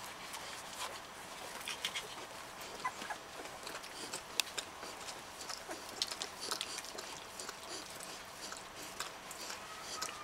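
A mother dog licking and nuzzling her newborn puppies on a blanket: scattered wet clicks and rustling, with a few faint puppy squeaks.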